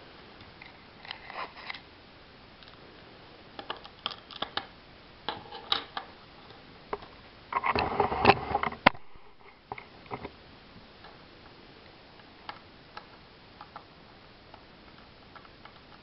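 Lego bricks and plates clicking and tapping as a small Lego puzzle box is handled and taken apart by hand, in scattered short clicks, with a louder stretch of clatter and handling noise about halfway through.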